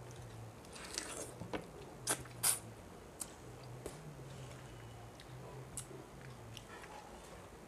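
Close-up eating sounds: a person chewing and crunching on a rohu fish head with rice and fish curry. Sharp crunches stand out about a second in and twice around two to two and a half seconds in, with softer mouth clicks between them.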